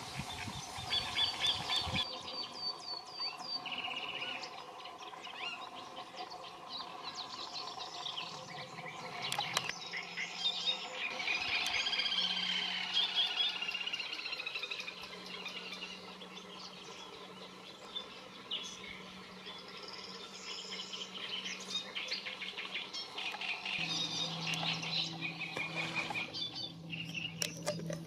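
Wild birds calling and singing together, a mix of short chirps and trills, with a quick run of repeated chirps in the first couple of seconds and the loudest, densest burst of calls about ten to fourteen seconds in.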